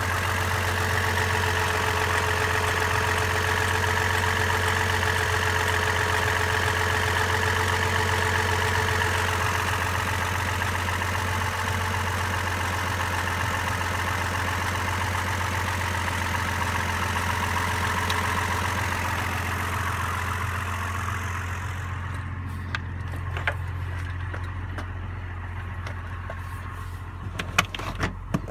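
2003 Chevrolet Trailblazer's 4.2-litre inline-six idling steadily with its serpentine belt cut off, a little throaty because its rear exhaust has been ripped off. About 22 seconds in the sound turns duller, and a few sharp clicks and knocks follow near the end.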